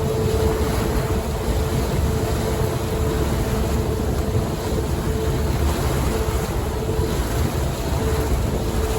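An engine running steadily, with a constant hum and a low rumble under wind noise on the microphone.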